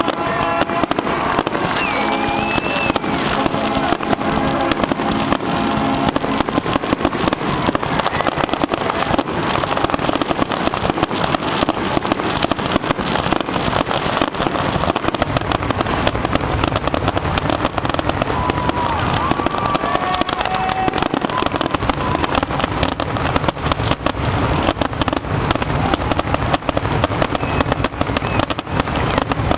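Fireworks display firing continuously: a dense, rapid run of bangs and crackling from aerial shells and comets, with no pause. A steady horn sounds over the barrage for the first few seconds.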